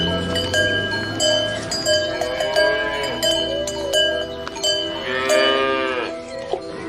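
Cowbells clanking again and again, each strike ringing on, while cattle moo; a longer moo comes about five seconds in.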